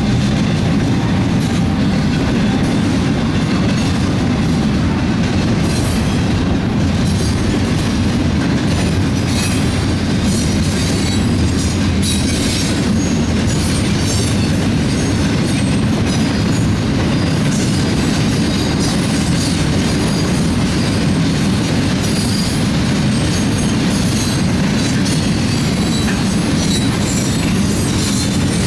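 Double-stack intermodal well cars rolling past: a steady low rumble of steel wheels on rail, with brief high squeals and clicks scattered throughout.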